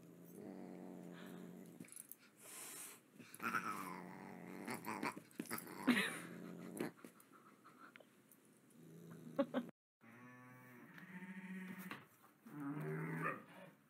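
A large dog growling in low, drawn-out grumbles while a Siamese cat swats at it, with a few sharp knocks. After a sudden break about ten seconds in, sheep bleating.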